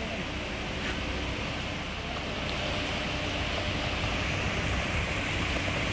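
Off-road vehicle in four-wheel drive moving slowly: a low engine and tyre rumble under a steady rushing noise, growing slightly louder.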